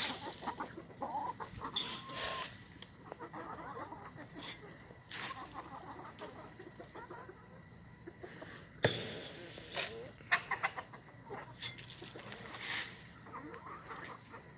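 Chickens clucking on and off, with several short sharp noises scattered among the calls, the sharpest about nine seconds in.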